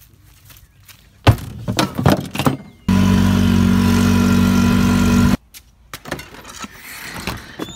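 A few knocks and rustling, then a golf cart running with a loud steady hum for about two and a half seconds that starts and cuts off abruptly.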